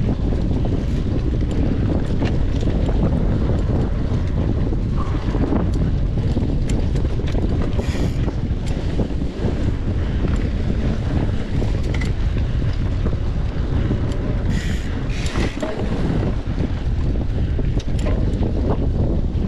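Wind buffeting the microphone of a camera carried on a bicycle during a trail race, a steady heavy rumble with many small rattles and clicks from the bike over the ground. A few short, brighter sounds come about 8 seconds and 15 seconds in.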